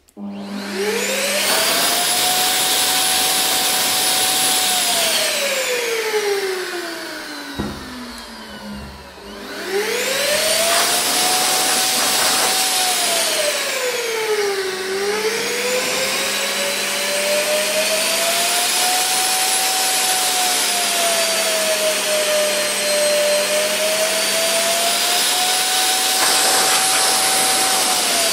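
Wagner FinishControl 5500 XVLP paint sprayer's turbine running and blowing air only, with the paint cup empty; it sounds like a vacuum cleaner. The whine spins up at the start, sinks far down in pitch a few seconds in, then spins back up. Its pitch dips and rises several times as the air-volume dial is turned, and the turbine works harder or eases off, blowing more or less air.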